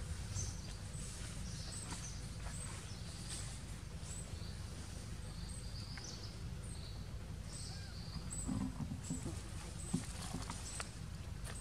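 Outdoor ambience: a steady low rumble with short, faint high-pitched chirps and a few scattered clicks, the clicks bunched together a little after the middle.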